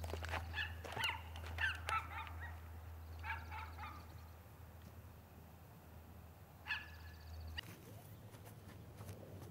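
Footsteps and scuffling of people running and crawling on grass, with a few groups of short high-pitched calls.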